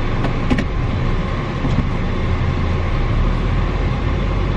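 Car cabin noise while driving: a steady low engine and road rumble with hiss, and a light click about half a second in.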